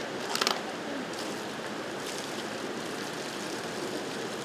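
Steady outdoor background noise on a station platform, with a brief clinking rattle about half a second in.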